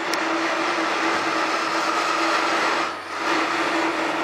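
Belt-driven, electric-motor marble-working machine running in a stone workshop, giving a steady whine over a noisy hum that dips briefly about three seconds in.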